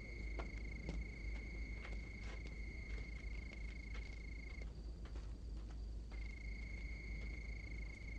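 Night ambience of a cricket chirping in one steady high trill, which breaks off for about a second and a half midway, over a low rumble with scattered faint clicks.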